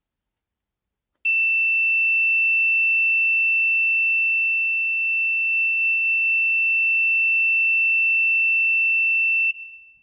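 Piezo buzzer of an Arduino MQ-4 gas-leak alarm sounding one continuous high-pitched tone, set off by gas reaching the sensor. It starts about a second in and cuts off suddenly near the end.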